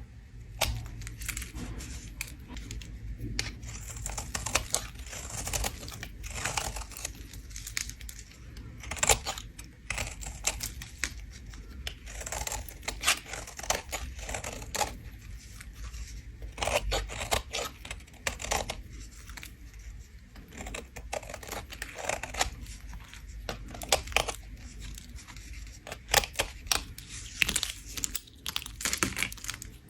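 A bar of soap being scraped in a rapid, irregular run of crisp scraping strokes.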